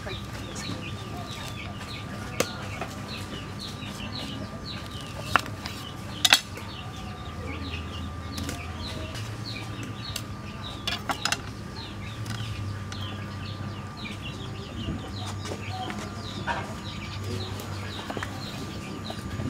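Kitchen knife cutting broccoli on a wooden chopping block, with a handful of sharp knocks of the blade on the wood, the loudest about six seconds in. Birds chirp steadily in the background.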